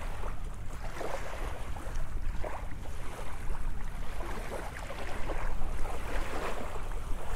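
Wind buffeting the microphone in a steady low rumble, with small waves lapping softly and irregularly at the sandy shore.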